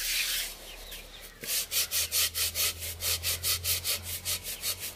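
Coarse salt and a coconut-coir scrubber rubbed back and forth over an unglazed clay pot. This is the first scrubbing that seasons a new pot. The rasping scrub pauses briefly about a second in, then goes on in even strokes at about four a second.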